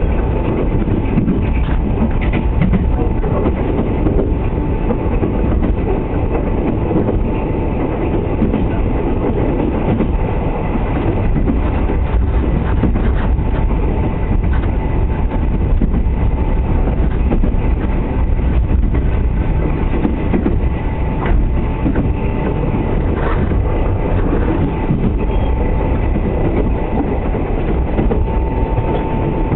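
Running noise inside a 24-series sleeper coach on the move: a steady low rumble of wheels on the rails, with scattered clicks and a faint steady high hum.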